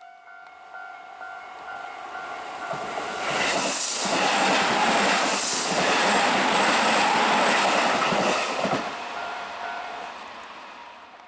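An electric commuter train passing close by. The rumble and rattle of wheels on rails builds over about three seconds, stays loud for about five seconds, then fades away.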